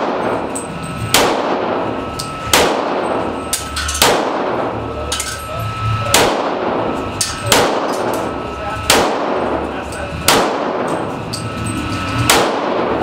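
A .40-calibre Glock pistol fired in slow, evenly paced single shots, about eight of them roughly one and a half seconds apart, each shot echoing in the enclosed range.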